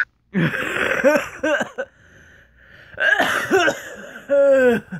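A person screaming and yelling raspily, in three loud bursts with short pauses between.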